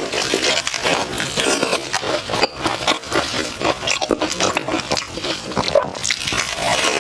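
Close-miked chewing of crispy fried glutinous-rice banana: dense, irregular crunching and mouth sounds.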